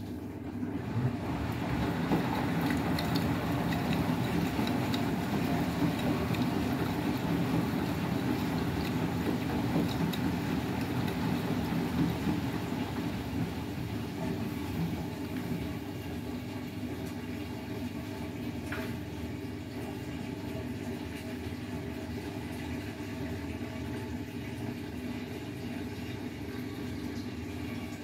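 Beko WTK104121W front-loading washing machine on its deep rinse, the drum turning the load through the water with steady sloshing and the motor running. The sound is a little quieter from about halfway through.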